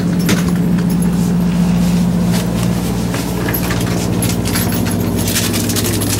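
A steady low machine hum, its lower tone growing stronger a couple of seconds in, with light clicks and clinks of a bowl and cup being handled.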